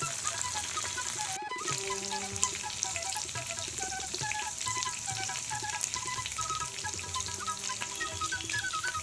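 Dals, garlic cloves and curry leaves frying in hot oil in a pan: a steady sizzle, briefly cutting out about one and a half seconds in. Soft instrumental background music plays over it.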